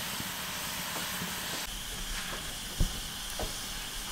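Wood fire burning in a fire pit with a steady hiss. A low rumble comes in after about two seconds, and a single dull knock follows about three seconds in.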